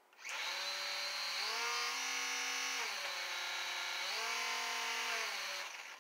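Eachine T28 Trojan micro RC plane's small electric motor and propeller running under throttle, a steady whine. Its pitch rises twice as the throttle is pushed up and falls back each time, and it winds down shortly before the end.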